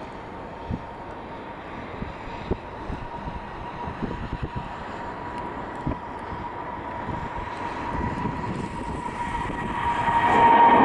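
Boeing 777F freighter's twin GE90 turbofan engines at takeoff thrust: a steady jet roar with a whining fan tone. It grows louder as the aircraft climbs toward and past the microphone, most sharply near the end, with a few low thumps along the way.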